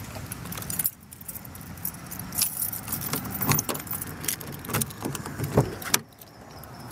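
A bunch of keys jangling in hand, with scattered sharp clicks. A louder latch knock comes near the end as a car door is pulled open.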